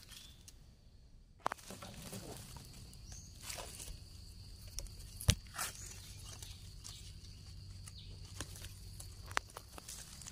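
Fingers scraping and digging in dry soil and leaf litter to pull up a termite mushroom: soft, scattered scrapes and rustles, with one sharper click about five seconds in.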